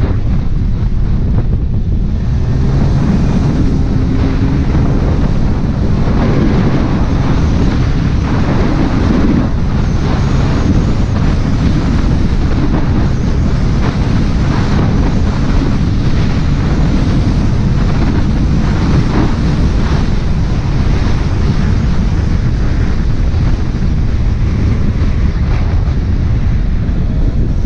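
Heavy, steady wind buffeting on the microphone while riding, with a faint engine hum underneath.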